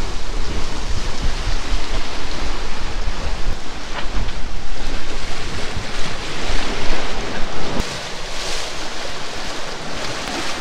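Waves rushing and splashing along the hull of a Leopard 45 sailing catamaran under way in a choppy sea, with heavy wind noise buffeting the microphone.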